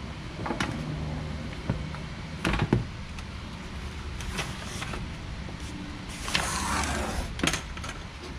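Handling noises on a desk: a few sharp knocks and clicks, the loudest a pair about two and a half seconds in, and a rustling scrape near the end, as a power cable and parts are moved about.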